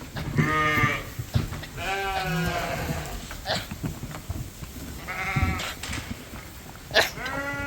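Young lambs bleating, four calls in turn, one drawn out longer than the rest. A few short sharp knocks come between them.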